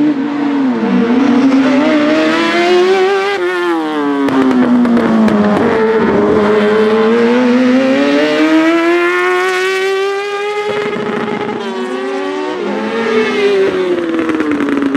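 Kawasaki ZX10-R 1000cc inline-four superbike engine in a Fiat Cinquecento Proto P2 race car, revving hard on track. Its pitch climbs and falls again and again as it accelerates and lifts off, with a quick dip about a second in.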